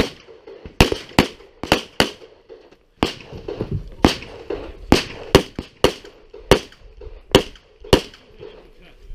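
Pistol shots fired in quick succession, about fifteen in all, mostly in close pairs, each with a short ringing echo.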